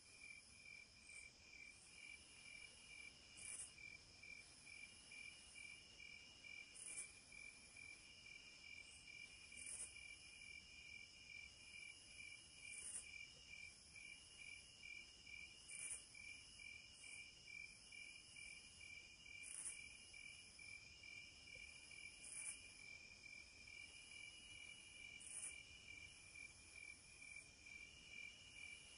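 Faint night insect chorus: crickets chirping in a steady, even pulse of about two chirps a second, with other insects trilling higher on and off and a sharper chirp about every three seconds.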